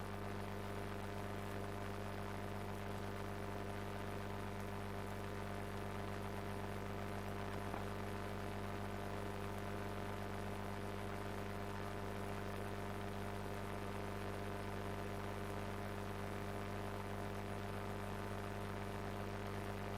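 Steady electrical mains hum with several steady overtones, unchanging throughout.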